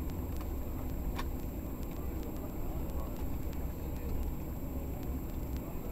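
Steady low rumble of airliner cabin noise as the plane rolls along the ground just after landing: engine and wheel noise heard through the fuselage, with a few faint clicks.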